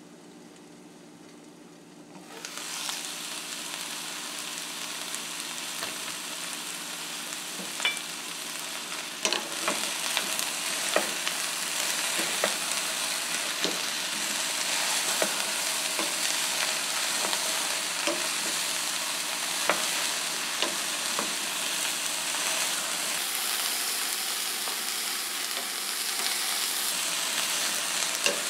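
Cauliflower and onion pieces sautéing in oil in a stainless steel pot. A muffled sizzle under the glass lid turns suddenly into a loud, steady sizzle about two seconds in as the pot is uncovered. A wooden spoon stirring the vegetables adds scattered sharp clicks against the pot.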